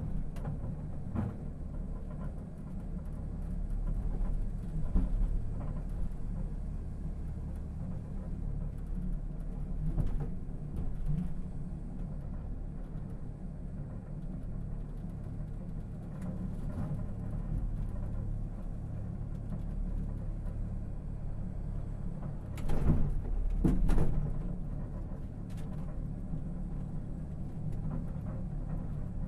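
Busan Blue Line Park sky capsule rumbling steadily as it runs along its elevated rail track, with scattered knocks and rattles; the loudest are two knocks close together about three-quarters of the way through.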